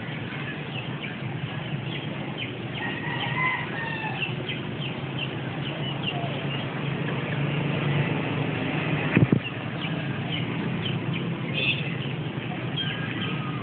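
A steady low hum, the unexplained 'strange sound' heard coming from the sky, under many short bird chirps and a chicken clucking. A sharp click about nine seconds in.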